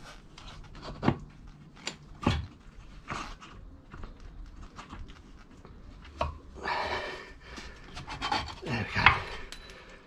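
Motorcycle rear axle being worked out of the wheel hub and swingarm by hand. There are a few sharp metallic clicks and knocks at first, then scraping and rubbing of metal on metal in the second half, with a loud knock near the end.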